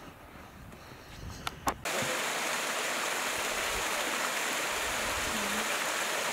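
Small waterfall spilling over a rock face into a pool: a steady rush of falling water that starts abruptly just under two seconds in, after a quieter stretch with a couple of sharp clicks.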